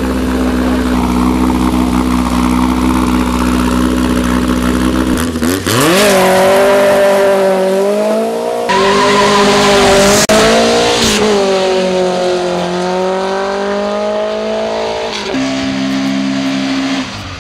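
Air-cooled VW Beetle flat-four engine held at steady revs on the start line, then revving up sharply about five seconds in as the car launches down the drag strip, its pitch dropping back and climbing again a couple of times, before settling to a steadier lower note near the end.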